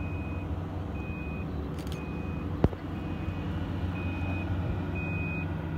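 A vehicle's reversing alarm beeping about once a second, each beep about half a second long, over a steady low rumble. There is a single sharp click about halfway through.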